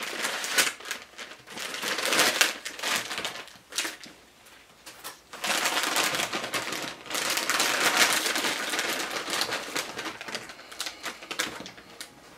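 A plastic produce bag crinkling as it is pulled open and handled, then Brussels sprouts spilling out and knocking onto a wooden cutting board as the bag is shaken empty. Scattered sharp knocks come near the end.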